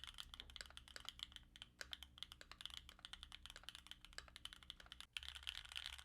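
Typing on a Keychron Q2 mechanical keyboard: a quick run of keystrokes, several a second, stopping about five seconds in.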